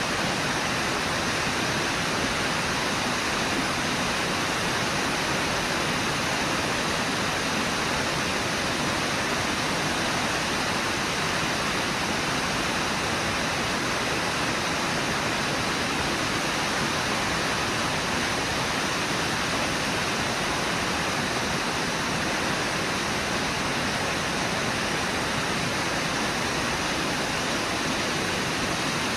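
Steady rushing of the Brooks River pouring over and below Brooks Falls, an even roar of white water with no change.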